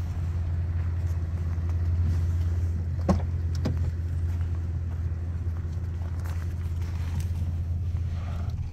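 1990 Acura Legend's V6 engine idling steadily, with a sharp click and a second knock about three seconds in as the driver's door is opened.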